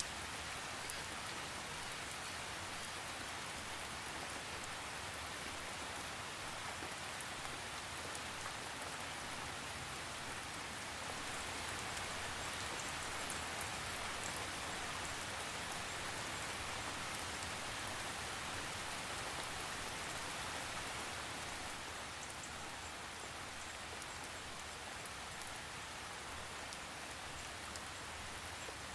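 Steady rain falling, an even hiss of drops hitting a surface with fine patters of individual drops and no thunder; it swells slightly for a while in the middle.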